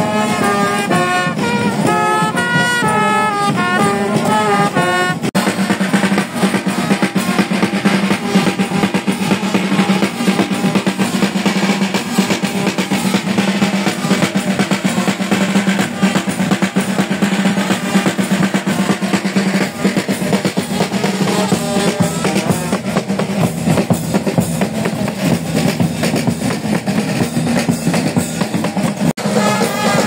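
Marching band: a brass melody on trumpets and euphoniums for the first few seconds, then a long passage of snare and bass drums playing a fast cadence, with the brass coming back in near the end.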